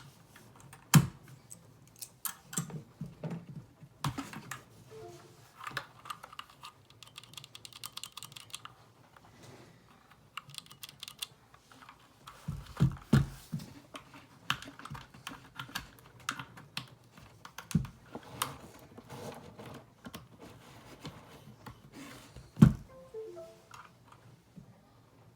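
Typing on an SK61 60% mechanical keyboard with lubed Gateron Brown tactile switches and pudding keycaps: a steady, irregular run of keystrokes with a few heavier strokes standing out.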